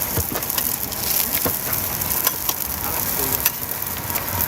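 Food sizzling on a hot pan or griddle: a steady hiss broken by scattered sharp clicks and knocks.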